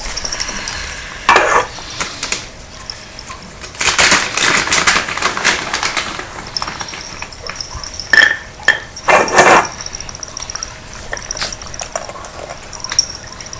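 Cats eating from their food bowls: irregular clinks and clatters of the bowls with crunching of dry kibble, and a few louder scraping bursts about a second and a half in, around four to six seconds, and around eight to nine and a half seconds.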